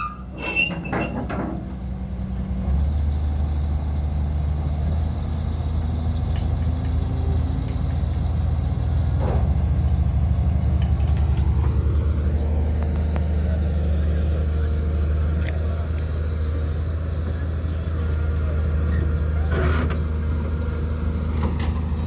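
Caterpillar 320 excavator's diesel engine running steadily under load, with a slow rise and fall in pitch in the middle and a couple of short knocks.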